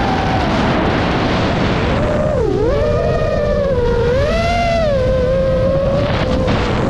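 A 5-inch FPV quadcopter's motors and propellers whining. The pitch dips sharply about two and a half seconds in, swings back up, then settles. Steady wind rumble runs underneath on the onboard camera's microphone.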